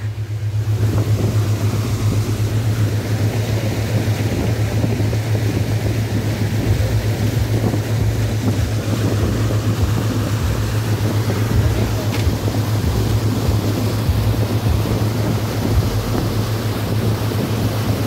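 A motor yacht's 1200 cc petrol engine running steadily under way, a constant low hum under the rush and splash of the wake along the hull.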